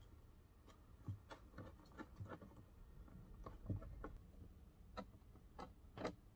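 A dozen or so faint, irregular clicks and ticks of a hand screwdriver working the screws out of a wooden cabin panel.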